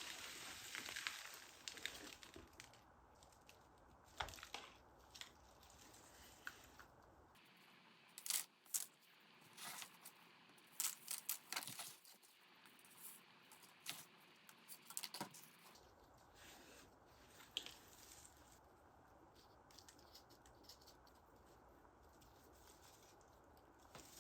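Scattered light clicks, taps and rustles of small objects being handled, over a faint room hiss.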